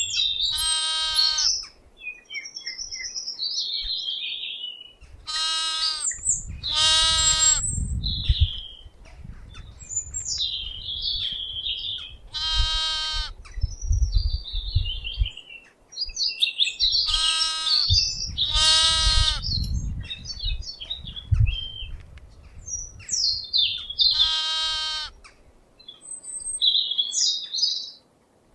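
About seven high bleats from a goat or sheep, each less than a second long, with birds chirping in the gaps and a low rumble under some of the bleats.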